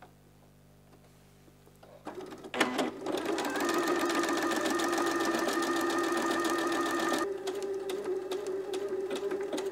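Janome DC230 sewing machine stitching a blind hem in cotton with its blind-stitch foot. After about two seconds of quiet it starts up with a click and runs at a steady speed, then runs on a little quieter from about seven seconds in.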